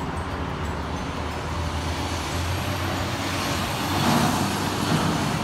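Steady motor vehicle noise: a low hum under a noisy haze, growing louder briefly about four seconds in.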